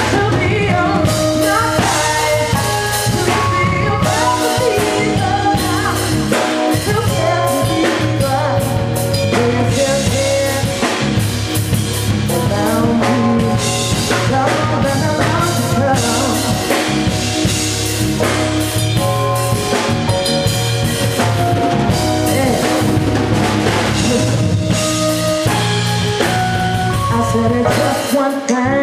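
Live band music with a drum kit keeping a steady beat, and a woman singing into a microphone.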